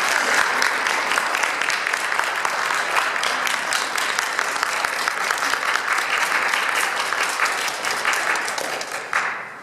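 Audience applauding steadily, the clapping dying away shortly before the end.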